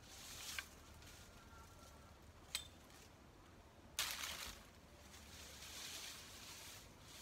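Branches and dry brush being handled: faint rustling broken by a few sharp snaps, the loudest a crack about four seconds in, followed by a burst of rustling.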